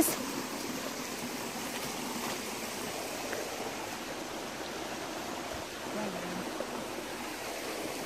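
Shallow rocky forest creek: water running steadily over stones.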